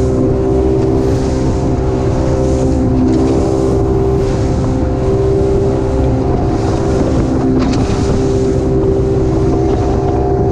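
A center-console fishing boat's engine running steadily at cruising speed, with a hiss of wind and water that swells and fades every second or so.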